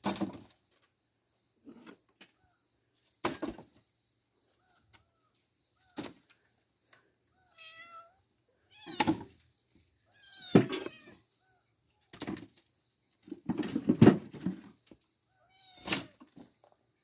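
Firewood being handled: irregular sharp wooden knocks and thuds every second or two, the loudest about three quarters of the way through. A few short, high animal calls with bending pitch fall between them.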